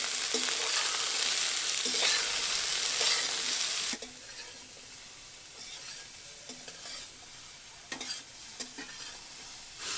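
Cut pulla vegetable pieces sizzling in hot oil in an aluminium wok while a metal spatula stirs them, with scraping strokes against the pan. The sizzle drops to a quieter level about four seconds in, with a few knocks of the spatula near the end.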